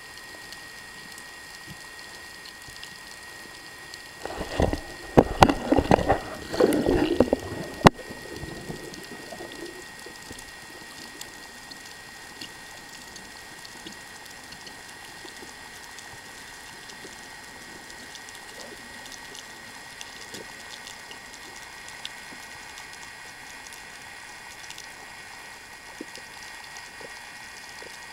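Underwater ambience picked up through a camera's waterproof housing: a steady hiss with a thin high whine. About four seconds in, a few seconds of loud clattering knocks and rattles break in, then the steady hiss returns.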